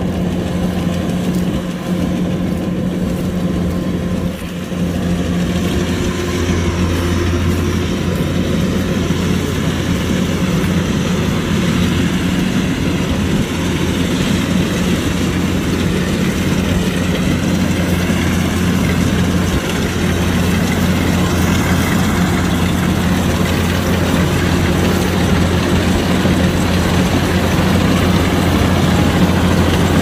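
Kubota DC-105X combine harvester running steadily, a constant low engine hum over machine noise.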